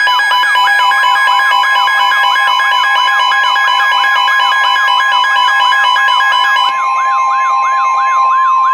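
NOAA Weather Radio's steady 1050 Hz warning alarm tone, layered with a weather radio's warbling siren-like alert that sweeps down and up about three to four times a second, and a fast beeping that stops about two-thirds of the way through. The tones herald a severe thunderstorm warning broadcast.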